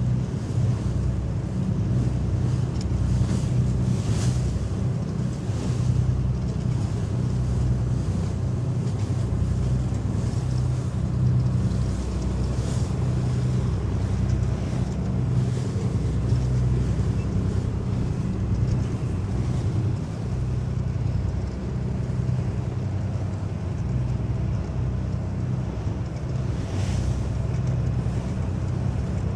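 Lifeboat under way: its engine runs with a steady low drone, and water splashes and washes against the hull every few seconds.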